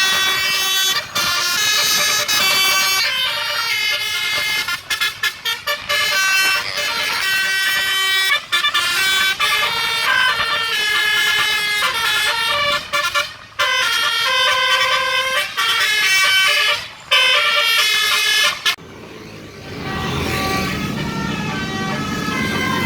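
Tour bus's Basuri telolet horn, a multi-trumpet musical horn, playing a tune in quick stepped notes with short breaks between phrases. It stops about nineteen seconds in and a lower engine rumble follows.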